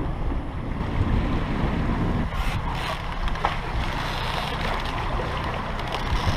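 Wind buffeting the microphone over the rush of water along the hull of a sailing catamaran under way. The hiss of water at the bow grows louder about two and a half seconds in.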